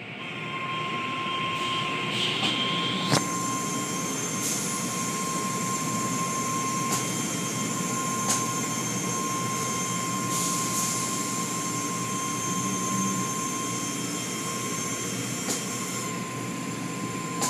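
Automatic tunnel car wash machinery running: a steady rush of spraying water and spinning cloth brushes, with a thin steady whine and a few short knocks.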